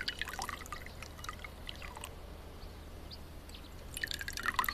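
Tea poured from a porcelain teapot into a small porcelain cup: a faint trickle with small splashes, dying down through the middle and picking up again near the end.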